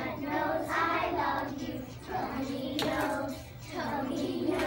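A children's song playing, with child voices singing in short phrases of about a second each, and a single sharp clap about three seconds in.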